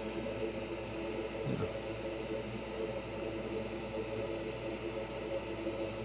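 A fan whirring steadily, with a low hum under a soft hiss.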